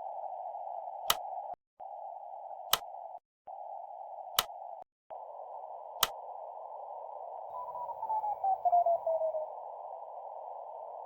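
Hiss confined to a narrow band, like a CW receiver's filtered band noise, broken by three brief dropouts, with four sharp clicks about a second and a half apart. From about two-thirds of the way through, a pulsing Morse-style beep slides down in pitch over the hiss.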